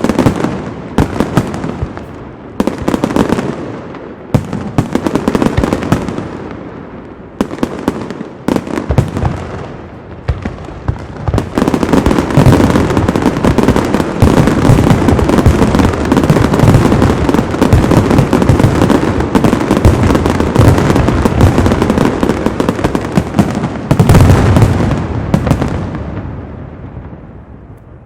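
Aerial fireworks shells bursting with sharp bangs, at first spaced about a second apart, then from about twelve seconds in a dense rapid barrage of bangs that builds to a peak and dies away near the end.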